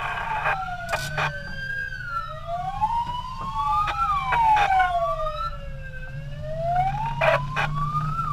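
Wailing sirens of volunteer fire-rescue vehicles, at least two overlapping and out of step, each rising and falling slowly about every four seconds. Short sharp blasts cut in about a second in and again near the end, over a steady low engine rumble.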